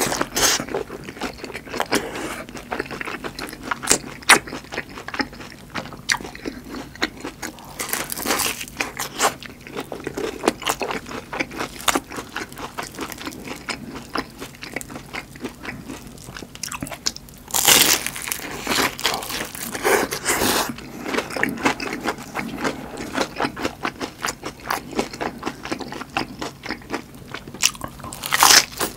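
Close-miked crunching and chewing of battered, deep-fried giant chili peppers, the crisp batter cracking with each bite. Several louder crunchy bites stand out between steadier chewing.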